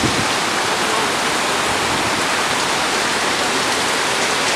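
Heavy rain and brown floodwater pouring over the edge of a concrete roadside drain, a steady rushing noise.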